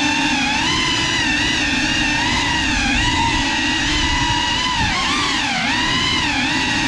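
Motors and propellers of a GEPRC Cinelog 35, a ducted 3.5-inch cinewhoop FPV drone, whining steadily in flight, the pitch rising and dipping as the throttle changes.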